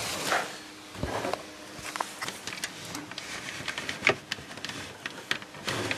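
Hands handling power supply cables and computer parts: scattered light clicks and rustling of plastic and cable, with one sharp click about four seconds in.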